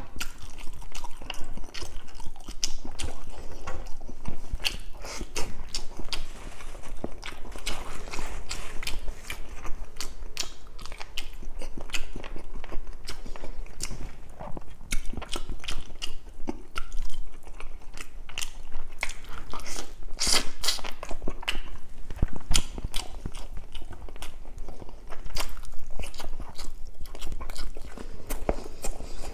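Close-miked chewing and eating sounds of a person eating roast chicken and rice by hand: a dense, continuous run of small clicks and smacks of mouth and lips.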